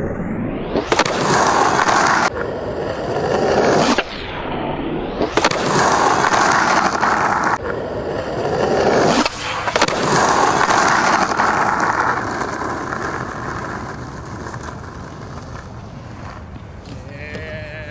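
Skateboard wheels rolling loudly over rough, cracked asphalt, broken by sharp wooden clacks of the board being popped and landing flip tricks. The rolling comes and goes in several passes and fades away over the last few seconds.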